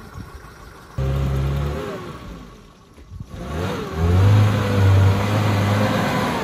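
A motor vehicle engine running and revving, coming in about a second in, dropping away briefly and picking up again louder about halfway through.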